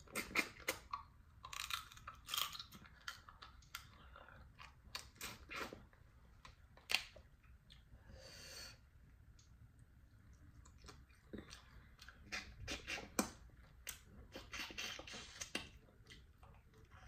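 A person chewing and crunching pieces of Dungeness crab: irregular crisp crunches and clicks, some stronger than others.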